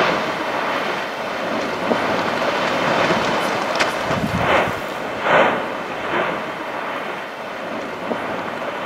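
Lava fountain of Piton de la Fournaise erupting: a steady, jet-like rush of escaping gas, with three louder bursts of spatter a little past halfway.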